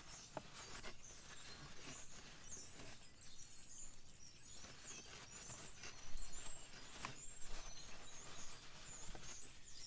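Small birds chirping repeatedly in short, thin, high calls over steady outdoor background noise, with a couple of light knocks a little past the middle.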